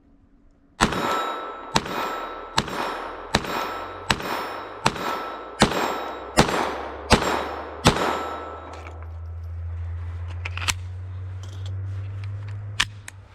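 Glock 44 .22 LR pistol firing ten shots in a steady string, about one every three-quarters of a second, each crack ringing briefly. A few isolated sharp clicks follow near the end.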